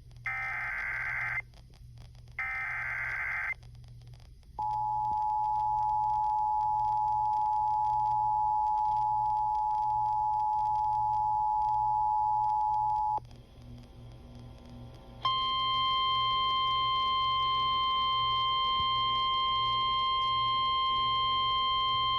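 Emergency Alert System signal relayed over FM radio for a severe thunderstorm warning. It opens with two short buzzy bursts of the SAME data header, then the two-tone attention signal held steady for about eight and a half seconds. After a brief quieter gap, a single steady alarm tone, the NOAA Weather Radio warning tone, sounds for the last seven seconds or so.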